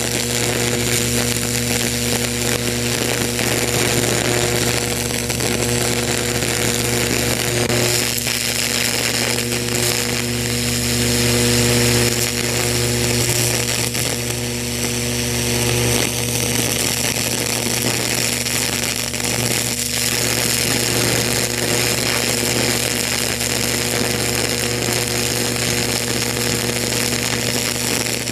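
High-voltage electric arc burning into a pumpkin's skin from a probe tip, with its power supply: a continuous loud electrical buzz with a steady low hum and high whining tones above it.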